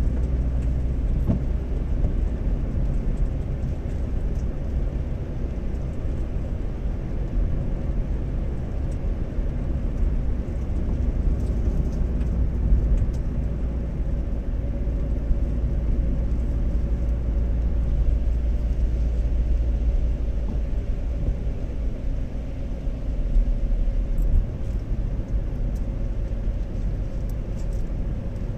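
Steady low rumble of a car driving, heard from inside the cabin: engine hum and tyre noise on a wet road.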